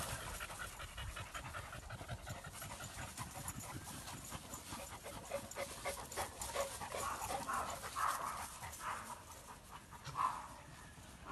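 A dog panting quietly, with a couple of brief louder sounds in the last few seconds.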